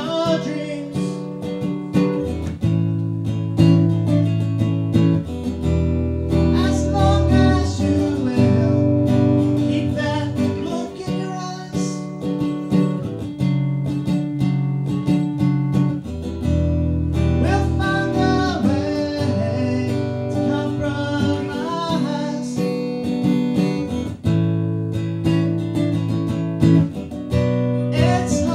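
Music: an acoustic guitar strummed in chords, with a man singing phrases over it.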